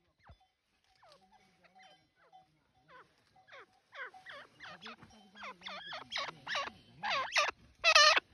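Grey francolin calling: a run of repeated shrill, sweeping calls that starts faintly about three seconds in and builds steadily louder, reaching full volume near the end, the species' typical crescendo call.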